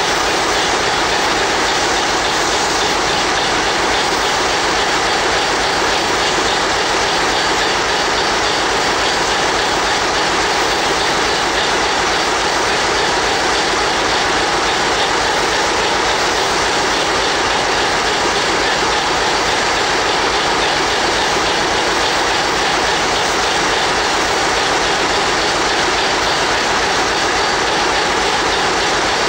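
Steady, unbroken noise of standing locomotives: an idling diesel locomotive engine close by, mixed with the hiss of a steam locomotive at rest.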